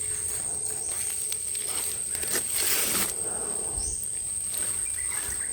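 Rustling and scraping of a foil-wrapped fish being turned over on a campfire, with a louder noisy rustle about two and a half seconds in and scattered small clicks. A steady high-pitched tone runs underneath.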